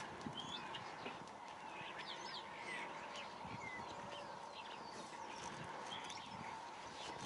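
Birds chirping in short, scattered calls, faint, over a steady low hum.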